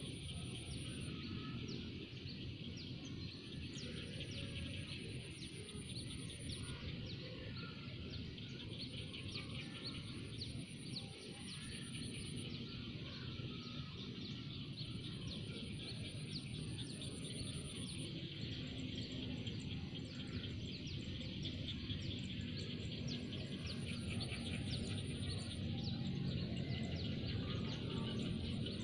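Outdoor rice-paddy ambience: dense rapid chirping over a steady low rumble, with a high, thin trill that comes and goes every few seconds.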